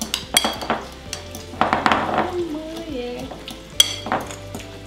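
Metal cutlery mashing avocado in a glass bowl: a few sharp clinks against the glass just after the start and again near the end, with soft scraping and mashing between. Chickpeas sizzle in a frying pan underneath.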